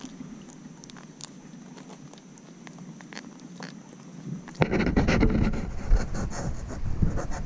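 Close handling noise as a sheepshead is held against the camera and lowered for release. A few faint ticks come first, then about halfway through loud rustling and knocking starts up right at the microphone.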